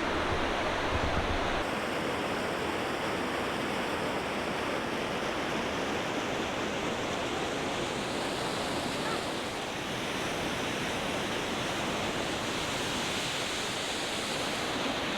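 Steady rush of the Panimur waterfall's cascading water.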